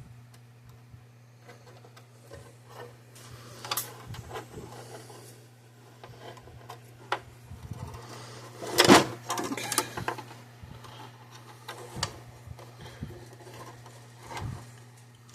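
Hand work on metal parts: scattered clicks and small metal clatter, with one louder knock about nine seconds in, over a steady low hum.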